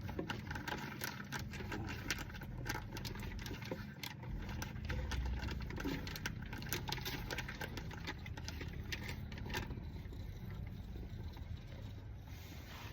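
Scattered light metallic clicks and taps of tools and parts being handled during an oil filter change, over a steady low background hum.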